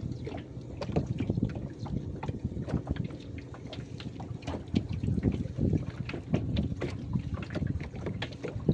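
River water lapping and splashing irregularly against the hull of a small boat, with wind on the microphone.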